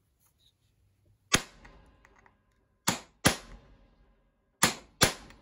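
Ball-peen hammer striking a steel punch to drive out the rivet of a worn chainsaw bar nose tip: five sharp metallic blows, one and then two quick pairs, each ringing briefly.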